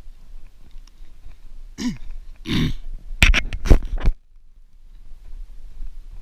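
A person clearing his throat with rough, throaty vocal noises about two seconds in, followed by a quick cluster of four or five sharp knocks; then the sound cuts off abruptly to a low rumble.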